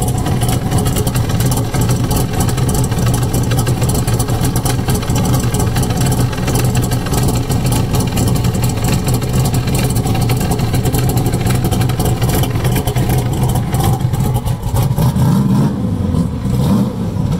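Chevrolet C3 Corvette's V8 running through side-exit exhaust pipes, a steady loud idle; the pitch rises briefly near the end.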